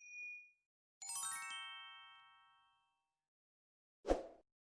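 Bell-like chimes: a quick descending run of a dozen ringing notes, high to low, that die away over about two seconds, following the fading ring of a single struck tone. A short soft thump comes near the end.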